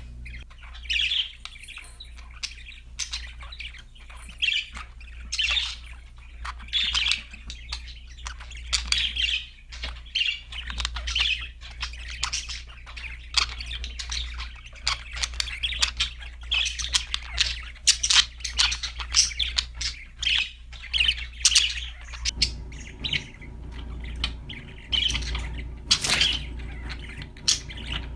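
Budgerigars chirping and squawking, a steady stream of short, rapid calls from several birds, with a low hum underneath.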